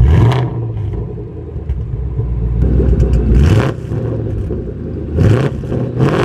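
Ford Mustang GT's 5.0-litre V8 idling through an Xforce Varex active exhaust and being blipped: several short revs that rise in pitch and drop back to idle.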